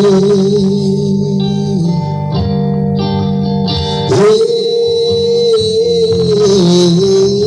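Music played loud through a mini sound system with its amplifier bridged for a sound check. A long, wavering melody note sits over steady chords, gives way to shorter plucked notes around the middle, and is held again from about four seconds in.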